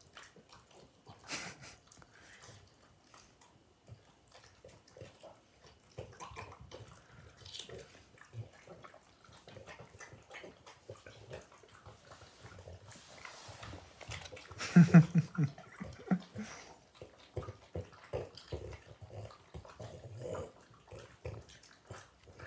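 French bulldogs chewing and crunching hand-fed pieces of cucumber with peanut butter, with many small wet mouth clicks and smacks. About two-thirds of the way through there is one louder, low grunt.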